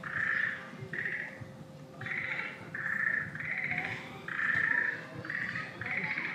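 A run of about eight short, buzzy animal calls, each under a second long, coming roughly once a second and alternating slightly between a higher and a lower pitch.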